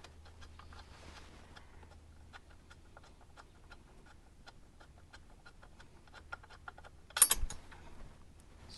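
Ratchet wrench clicking in quick runs of light ticks as a headlight-bracket bolt is backed out. A single loud knock comes about seven seconds in.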